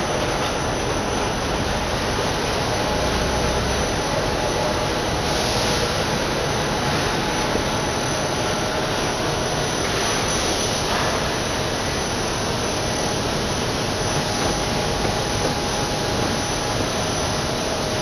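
Rockwool sandwich panel production line running: a steady mechanical din with a faint steady whine over it.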